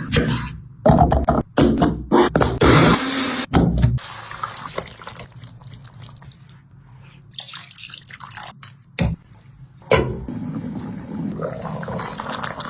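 Water running and splashing in a sink, as from a tap. It is loud in stop-start stretches for the first few seconds, quieter in the middle, and steady again near the end.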